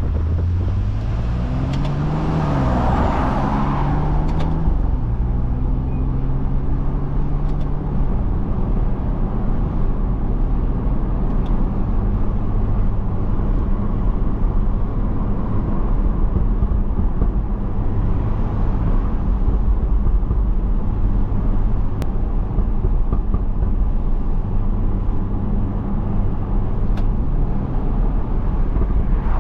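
BMW F30 335i's turbocharged inline-six, Stage 2 tuned with a catless downpipe, pulling up through the revs in the opening seconds with a shift at about two and a half seconds and a brief rush of air, then settling into a steady cruise with road noise.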